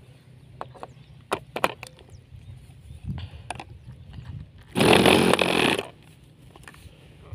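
Handheld electric starter whirring for about a second as it spins over a small OS 15LA two-stroke glow engine on a model plane, then cutting off. The engine does not catch. Before that come a few sharp clicks of handling.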